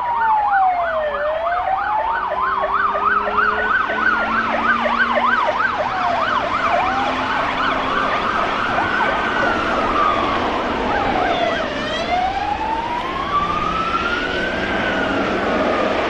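Police car sirens sounding together: a slow wail rising and falling about every three seconds, and a fast yelp going up and down a few times a second that fades out about halfway through. Car engine and road noise run underneath.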